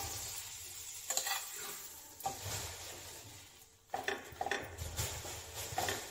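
Pav bread sizzling in hot fat in a frying pan, a steady hiss that fades over the first few seconds. A few light knocks and scrapes against the pan as the slices are laid in and pressed down.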